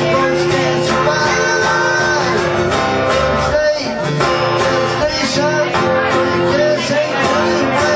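Two acoustic guitars strumming a steady country-rock rhythm in a live duo performance.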